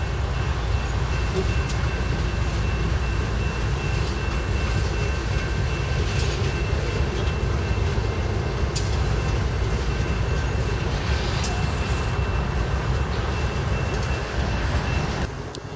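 Norfolk Southern freight train passing close by: diesel locomotives rumbling past, then boxcars and autorack cars rolling along the rails with scattered sharp wheel clicks. The sound drops off suddenly near the end.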